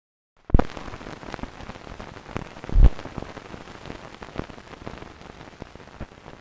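Steady crackling hiss strewn with pops, starting abruptly after silence about half a second in, with two louder pops near the start and about three seconds in.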